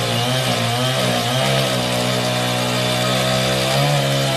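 Petrol chainsaw running at high revs, sawing through a log, its engine pitch wavering slightly as it cuts.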